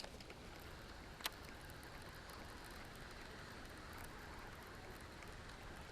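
Faint steady background hiss with a single sharp click a little over a second in.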